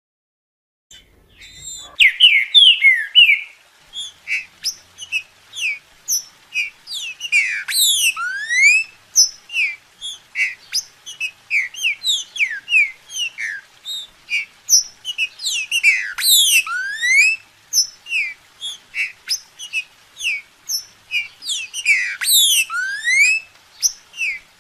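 Green-winged saltator (trinca-ferro) singing a rapid run of loud, clear whistled notes. A phrase with steep rising and falling whistles comes back three times.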